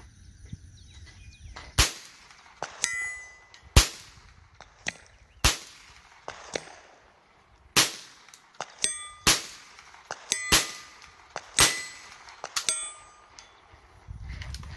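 A 16-inch steel gong being struck by .22LR bullets, heard close to the target: about a dozen sharp cracks, several followed by a short metallic ring. The hits come faster in the second half, as the shooter fires rapidly.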